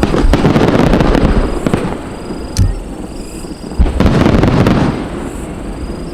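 Fireworks shells bursting: a loud burst at the start with crackling after it, a sharp crack, and a second loud burst about four seconds in.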